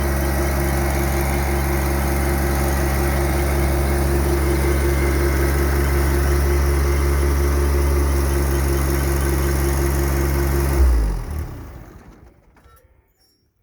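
John Deere 1025R compact tractor's three-cylinder diesel engine running steadily, then shut off about eleven seconds in and winding down to quiet.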